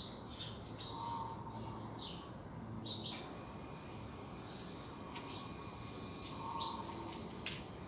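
Birds chirping in the garden: short, high chirps repeating about once a second, with a lower call twice, over a faint outdoor background.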